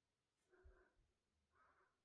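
Near silence: room tone with only very faint traces of sound.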